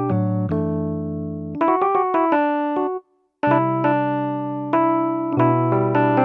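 Kurzweil PC4 keyboard playing a piano-type sound: held chords, a quick run of notes, a brief stop about three seconds in, then new chords struck about once a second.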